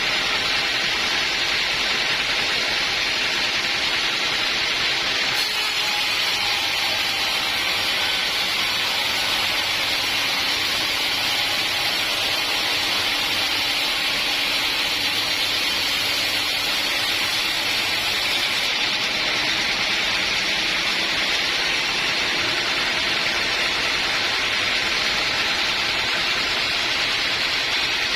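Portable sawmill running steadily, an even machine noise with a faint low drone underneath.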